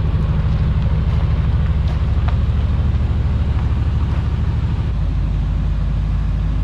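Chevrolet Suburban's 8.1-litre Vortec big-block V8 running in a deep, steady rumble through a rusted-out exhaust, which the owner calls an exhaust leak.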